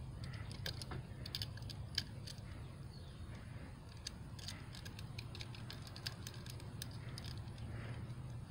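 Faint, scattered small clicks and scrapes of a knife stripping the insulation off thin electrical wires, over a low steady hum.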